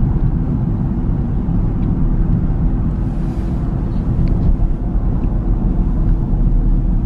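Steady road noise inside a moving car's cabin: engine and tyre rumble with a constant low hum.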